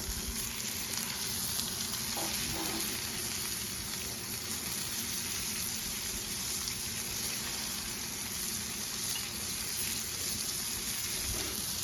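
Filet mignon steaks searing on a hot flat-top griddle: a steady, even sizzle.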